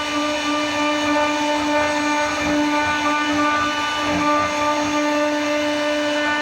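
CNC router spindle running with a steady high whine while it carves a wood design.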